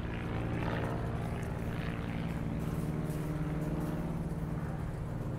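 Steady low mechanical hum with several held tones, unchanging throughout.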